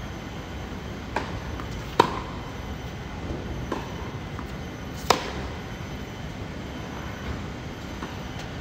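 Tennis rally on a hard court: sharp strikes of racket on ball, two loud ones from the near player about two and five seconds in, with fainter hits and bounces from the far end of the court, over a steady background noise.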